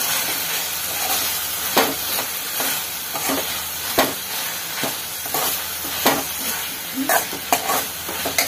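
Ivy gourd, tomato and greens frying in oil in a metal kadai with a steady sizzle, while a metal spatula stirs them, scraping and knocking against the pan several times.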